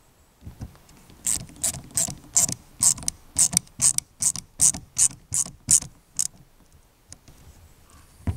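A ratcheting hand tool clicking through a run of about fifteen strokes, roughly three a second, stopping about six seconds in.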